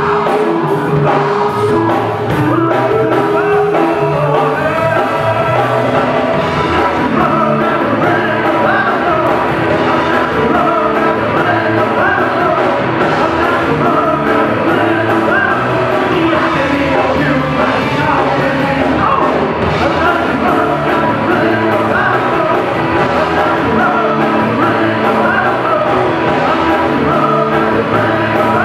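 A live rock band playing a song loudly: lead vocals over electric guitars, bass and drums.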